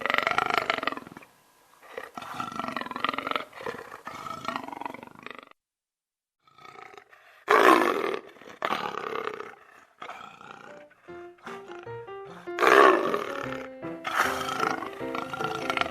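A large animal giving loud, long calls, several in a row with short gaps between them. Light music of quick plucked notes comes in about eleven seconds in and plays under the last calls.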